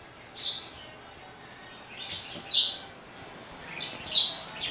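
A bird chirping: several short, high chirps a second or two apart.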